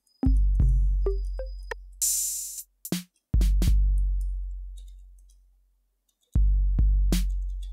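Trap drum pattern from a Maschine drum kit looping in playback: deep 808-style bass kicks that ring and fade over a couple of seconds each, with light hi-hat ticks and one noisy snare-type hit about two seconds in. The pattern falls silent briefly and starts again about six seconds in.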